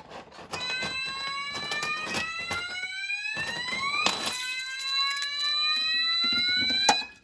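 Ampac electronic fire alarm sounder going off in its wail tone: two slow rising sweeps of a few seconds each, with a steady high beep from the fire panel's piezo beneath. It is the system in alarm from a manual call point, and it cuts off suddenly near the end as the alarm is silenced.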